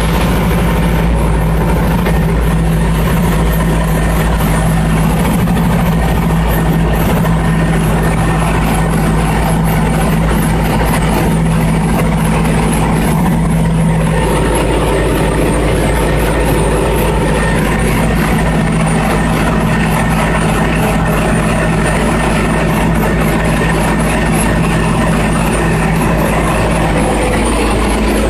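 Generac 27 kVA generator's engine running steadily at a constant speed, with a slight change in its tone about halfway through.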